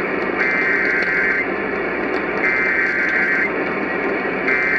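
Weather radio broadcasting the digital SAME alert header: three bursts of a high warbling data tone, each about a second long and about a second apart, the third starting just before the end, over a steady hiss. This coded header marks the start of a warning broadcast.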